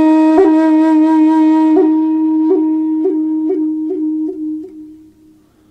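Music track: a flute holding one long note, re-attacked in a run of quickening pulses, then fading out near the end.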